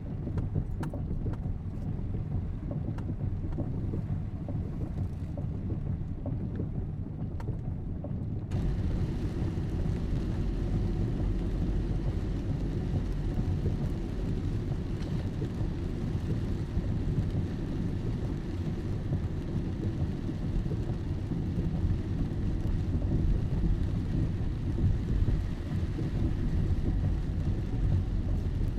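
Steady rain noise, heavy in the low end, with faint separate drop ticks in it. About eight seconds in the sound changes abruptly to a fuller, hissier wash, like a cut to another rain recording.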